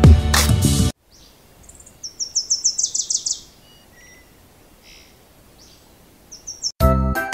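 Music breaks off about a second in. A bird then sings a quick run of high chirps, followed by a few fainter chirps over a faint hiss, and music starts again near the end.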